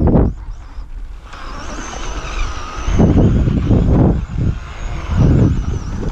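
Novak brushless motor and drivetrain of a Team Associated RC10T3 electric RC truck whining high as the truck drives, the pitch wavering with the throttle, starting about a second in. Wind buffets the microphone in three low gusts, near the start, in the middle and near the end.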